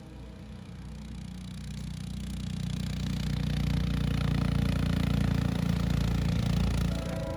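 Diesel locomotive running, a low rumble that grows louder over the first four seconds and then holds steady, easing slightly near the end.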